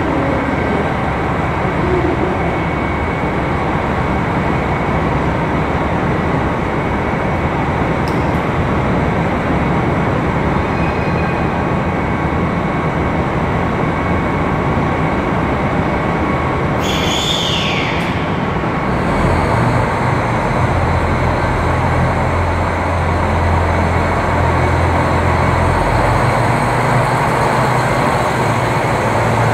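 JR Hokkaido 261-series diesel railcar running at a standstill, with a steady engine and station hum. About 17 s in there is a short sharp hiss of air. Then the diesel engines rise to a heavy low rumble as the train starts to pull away.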